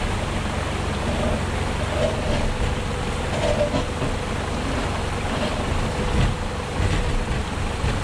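A Toyota Hilux Surf's engine runs at low revs, a steady low rumble, as the 4x4 crawls up a wet slate rock slab. Water runs over the rock underneath.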